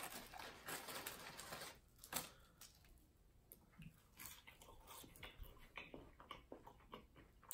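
Faint, scattered small clicks and rustles of French fries being picked from a paper wrapper and eaten, with quiet chewing.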